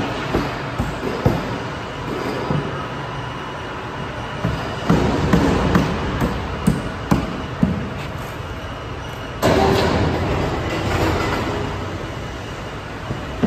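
Steady factory machinery noise with a faint whine and frequent sharp metallic clanks and knocks. It grows suddenly louder about nine and a half seconds in, then slowly fades.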